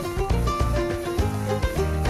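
Background music: an upbeat plucked-string instrumental with a repeating bass line.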